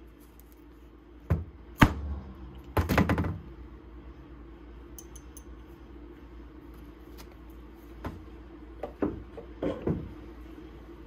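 Sharp metal clicks and clinks of a small open-end wrench working on the metal ferrule of a stubby screwdriver as it is put back together. Two single clicks come a little over a second in, a short rattling clatter about three seconds in, and a few lighter taps near the end.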